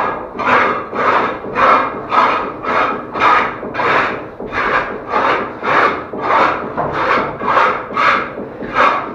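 A hand tool scraping back and forth over plaster in an even rhythm, about two strokes a second.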